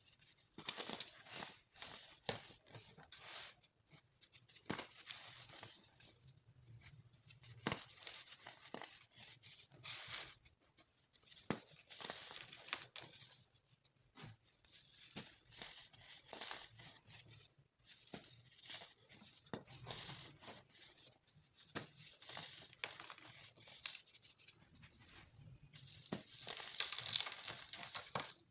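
Colored baking soda being crushed: irregular runs of crisp crunches and crackles with short pauses between them, loudest near the end.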